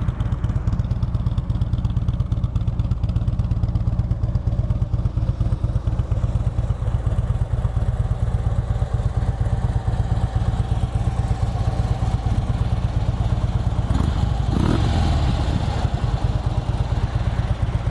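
2011 Harley-Davidson Street Glide's V-twin idling steadily through its stock factory exhaust. It runs evenly, with no odd engine noise.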